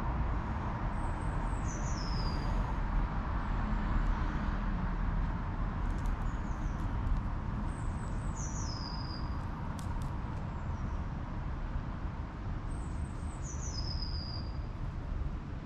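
Outdoor ambience: a steady low rumble, with a small songbird singing a short, high-pitched phrase that steps down in pitch three times, about every five to six seconds.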